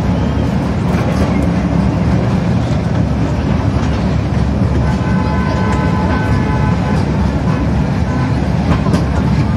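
Mini toy train running steadily, heard from inside its open passenger carriage: a continuous low rumble with occasional light wheel clicks, and a faint high steady tone for a few seconds midway.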